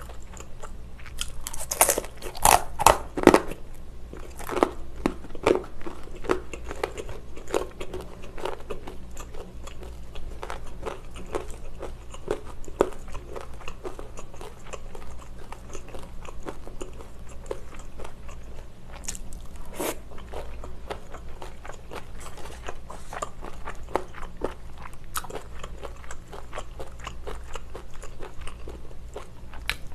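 Close-miked biting and chewing of crunchy deep-fried Korean snacks (twigim), with the loudest crisp crunches about two to three seconds in, then softer steady chewing with scattered clicks.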